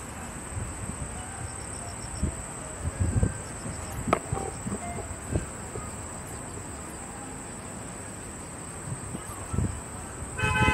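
A steady high-pitched insect drone from the planting, over low, irregular thumps and a sharp click about four seconds in. A short pitched sound, a voice or a horn, comes right at the end.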